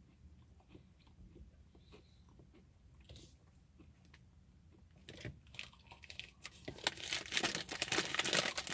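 Faint chewing of a mouthful of crisp-rice-and-marshmallow treat bar, with small wet mouth clicks. In the last couple of seconds it gives way to the bar's plastic wrapper crinkling loudly as it is handled.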